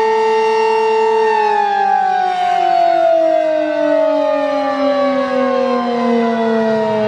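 Sentry 15V2T-B outdoor warning siren holding its steady alert tone, then about a second in beginning to wind down, its pitch falling steadily as the rotor coasts to a stop: the end of its one-minute alert cycle.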